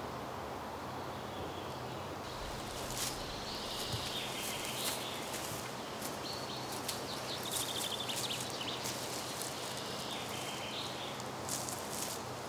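Forest ambience: a steady hiss with faint short bird calls now and then, including a quick run of ticking notes about seven seconds in.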